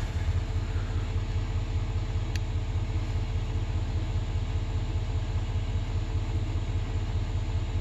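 Snowmobile's two-stroke twin engine idling steadily, a 2002 Arctic Cat ZR 600 EFI, with one faint click about two and a half seconds in.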